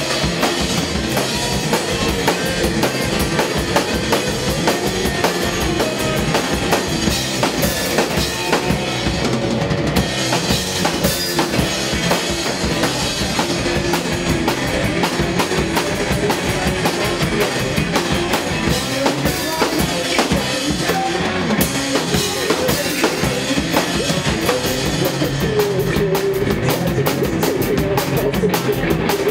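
Live psychedelic rock band playing, with a busy drum kit to the fore: a steady run of kick and snare hits over the band.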